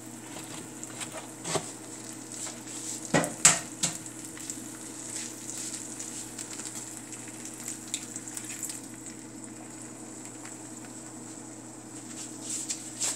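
Eggs frying in a hot nonstick pan in leftover sausage oil: a steady sizzle, broken by a few sharp clicks and knocks, the loudest cluster about three seconds in and more near the end.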